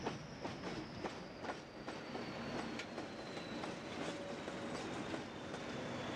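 Pair of English Electric Class 20 diesel locomotives rolling slowly past at close range, their wheels clicking irregularly over rail joints, with a thin high whistle slowly falling in pitch above the machinery noise.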